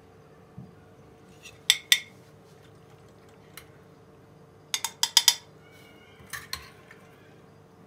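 Metal spoon clinking against a steel pot while pasta is dished out: two sharp clinks about two seconds in, a quick run of four around five seconds, and a couple more soon after.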